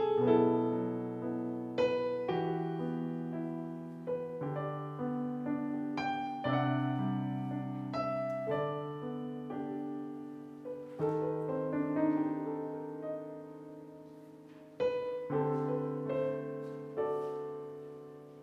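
Solo piano playing slow chords, each struck and left to ring and fade before the next, a new chord every second or two.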